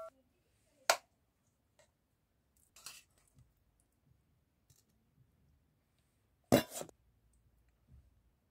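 A metal spoon clicking against a metal serving platter while spreading pasta salad: a sharp click about a second in, a faint one near three seconds, and a double click about six and a half seconds in, with quiet between.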